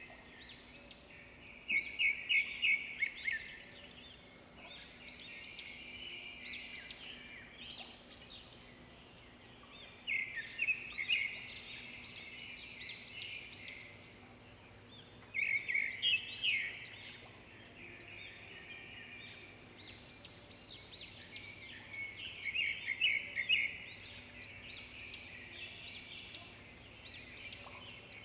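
Several small birds chirping and chattering, with loud bursts of rapid chirps every few seconds between quieter calls, over a faint steady low hum.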